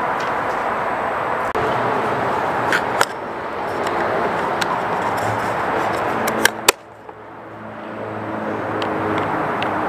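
Steady outdoor background noise with a few sharp plastic clicks, a pair about three seconds in and another pair past six seconds, as the roof rail foot's cover cap is handled and pressed into place. Just after the last click the background drops away suddenly and slowly builds back.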